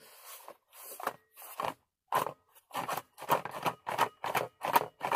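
Cardboard box holding an LED flashlight shaken hard, the flashlight and its loose contents knocking and rattling inside it. A few separate knocks come first, then a fast, even rattle of about three to four strikes a second.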